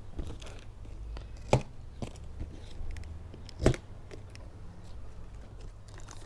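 Handling noises: scattered light clicks and rustles with two sharp knocks, about a second and a half in and again just under four seconds in, over a steady low rumble.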